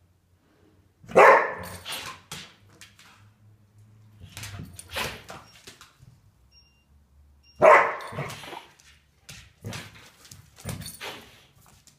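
Border collie barking: two loud barks, one about a second in and another some six seconds later, with quieter sounds between them.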